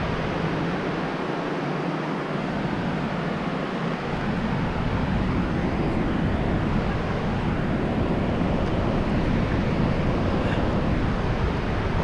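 Wind blowing across the camera's microphone, a steady rushing rumble that grows heavier in the low end about four seconds in.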